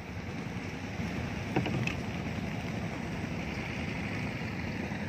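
Steady rushing of wind and river water around a small wooden fishing boat, with a light knock about a second and a half in.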